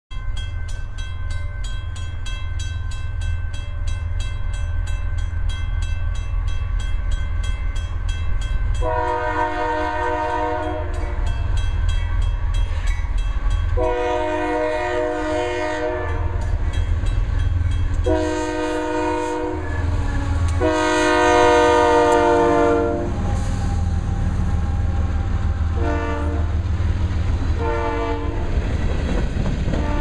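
Air horn of a Union Pacific GE AC4400CW diesel locomotive leading a freight train: four long chord blasts, then two short toots, over the train's steady low rumble. Near the end the freight cars roll past on the rails.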